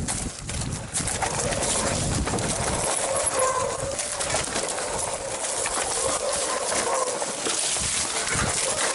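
Mountain bike riding down a rough trail: a steady rush of tyres over dirt and stones with constant rattling. Short warbling tones come in every second or two.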